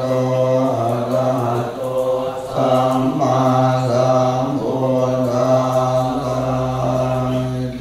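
Thai Buddhist temple chanting (suat mon): low voices intoning on a near-monotone, holding each phrase and breaking briefly between phrases every second or two.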